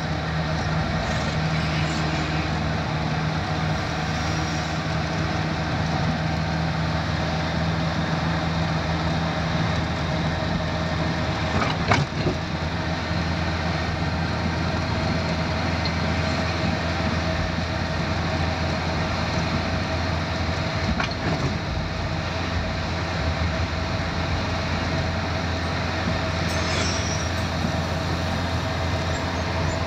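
Steady engine and tyre drone of a vehicle driving along a road, heard from inside the cab, with one sharp knock about twelve seconds in.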